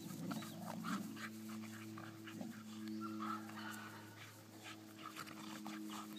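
Two dogs play-fighting and chasing on grass: faint scuffling and brief play noises from the dogs, over a steady low hum.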